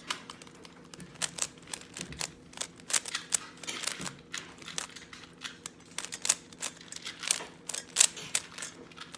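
Plastic speed cube being turned by hand in quick twists, a dense, irregular run of sharp clicks as the layers snap into place.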